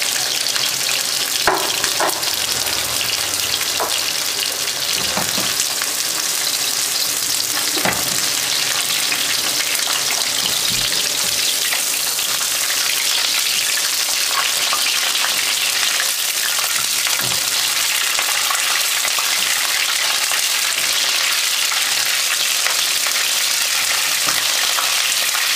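Egg-white and cornflour-coated chicken strips shallow-frying in hot oil in a non-stick pan: a steady sizzle, with a few light knocks in the first eight seconds or so as pieces are added and turned with a spatula.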